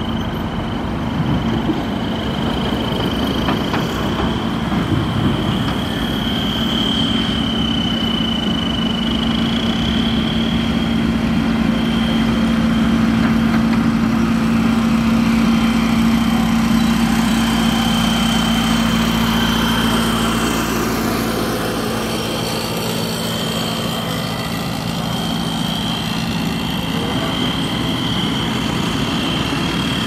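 Diesel road-works machinery running steadily, its engine hum a little louder in the middle, with a steady high whine over it.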